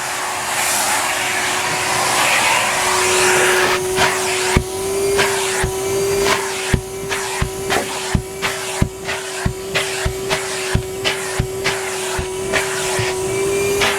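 Numatic Henry HVR 200A2 canister vacuum cleaner running steadily while sucking up paper and party debris, with a run of sharp knocks, a little under two a second, starting about four seconds in as the tube strikes the floor and debris.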